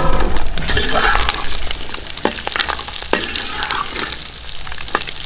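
Whole shallots tumbling off a steel plate into hot coconut oil in a clay pot and sizzling, then stirred, the long spatula scraping and knocking against the pot a few times over the steady frying hiss.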